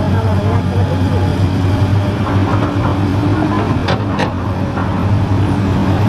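XCMG XE215C hydraulic excavator's diesel engine running with a steady low drone while it digs. Two sharp knocks, a fraction of a second apart, about four seconds in.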